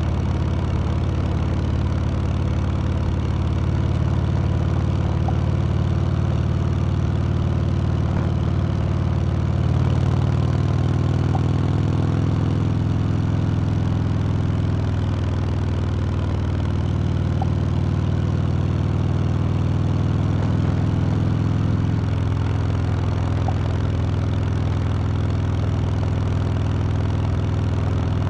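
Harley-Davidson Sport Glide's V-twin engine running steadily, its pitch shifting slightly about ten seconds in and again about twenty-two seconds in.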